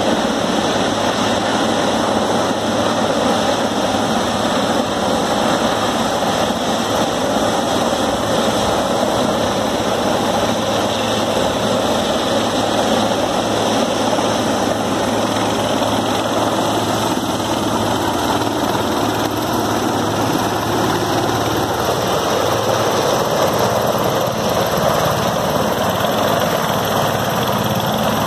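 Large helicopter hovering close by with a container on a long sling line, its rotor and engines running in a loud, steady drone that stays even throughout.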